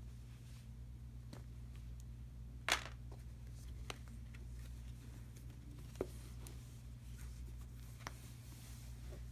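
Hands unfolding and handling a fabric shower curtain: faint rustling with scattered light clicks, the sharpest one about three seconds in and another about six seconds in, over a steady low hum.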